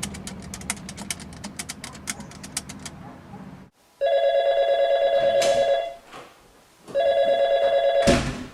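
A low rumble with rapid clicks, then a telephone ringing twice with a trilling ring, each ring about two seconds long with a second's pause between them.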